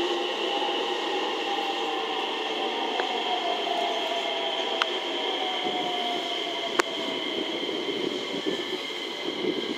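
Train rolling away on the rails: a Tobu N100 Spacia X set being hauled by an EF210 electric locomotive. It is a steady running noise with several tones slowly falling in pitch, and a few sharp clicks partway through.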